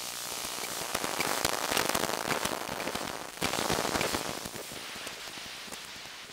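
Electromagnetic interference from a laptop computer's circuitry, heard through an Elektrosluch 3 electromagnetic listening device: dense crackling static full of rapid clicks. It swells about a second in, and jumps up suddenly at about three and a half seconds before falling back.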